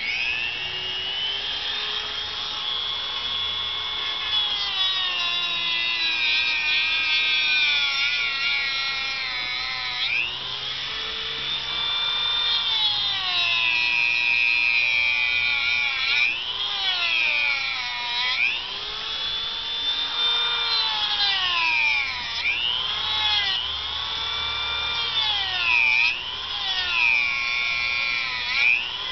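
Dremel rotary tool with a cutting disc running at high speed with a high whine, cutting into the seam of a sealed plastic laptop power supply case. Its pitch dips and recovers again and again as the disc bites in under load, more often in the second half.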